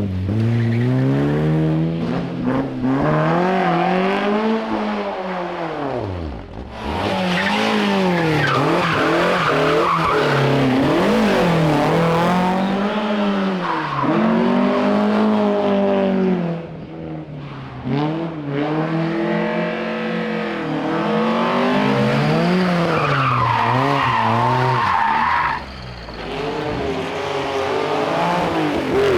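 Rally car engines revving hard on a special stage, the pitch climbing and dropping over and over through gear changes and lifts for corners, with tyre squeal at times.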